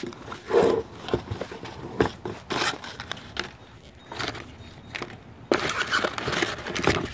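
Cardboard box flaps and crumpled packing paper rustling and crinkling as hands dig through a parts box, in irregular scrapes and crackles, busiest near the end.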